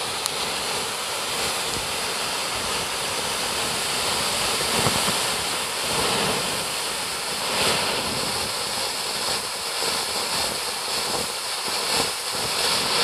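Golden Ashrafi fireworks fountains (flower pots) spraying sparks with a steady, loud hissing rush, with a few sharp crackles.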